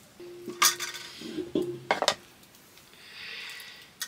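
Dishes and cooking utensils clinking: a few sharp knocks of metal against metal, then a soft hiss lasting about a second near the end.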